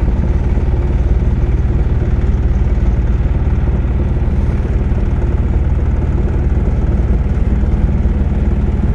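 Car engine and road noise while driving, a steady low drone that holds even throughout.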